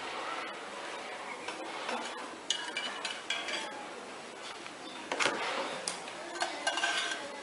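Small clinks and scrapes of a square metal cookie cutter, its press and a spoon on a plate as pumpkin is packed into the cutter and the cutter is lifted off and set down, with a few sharper clicks in the second half.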